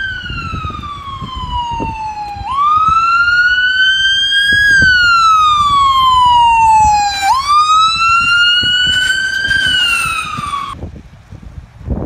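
Electronic siren in wail mode on a pickup truck: its pitch slides slowly down, jumps back up and climbs again, in cycles of about five seconds, then cuts off abruptly about eleven seconds in. A low rumble of wind noise on the microphone runs underneath.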